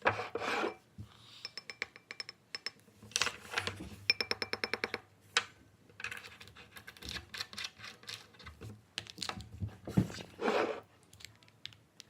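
Small plastic glitter containers being handled: two runs of rapid light clicking, about ten clicks a second, with a few short rustling bursts.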